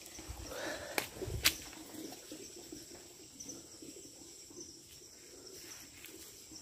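Footsteps and knocks of someone climbing down a slippery bank, with two sharp clicks about a second and a second and a half in.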